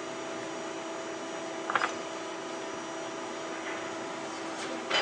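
Steady hum of workshop machinery, with one or two short metallic clicks near the end as the tapping tool's tap is handled.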